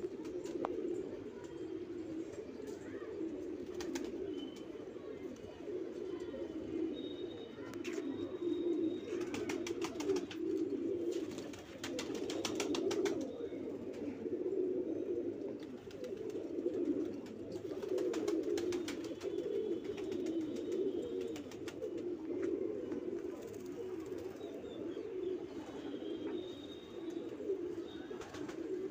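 Domestic pigeons cooing continuously, several birds overlapping in a steady low warbling chorus. A few short bursts of rapid ticking come in around the middle.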